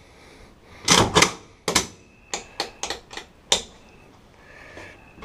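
Sharp metallic clicks from a Lynx 12 AK-style shotgun's action as it is cycled and its Tapco G2 trigger is dry-fired and reset. Two loud clicks come about a second in, then a quick run of eight or so lighter clicks over the next two seconds.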